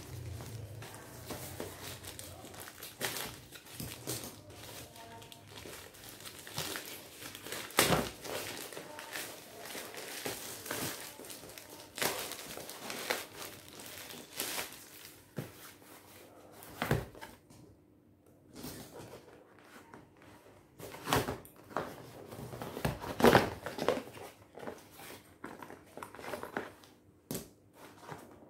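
Grey plastic shipping bag crinkling and rustling as it is unwrapped from a cardboard box, then the box itself handled and its flaps opened; irregular crackles with a few louder sharp handling noises.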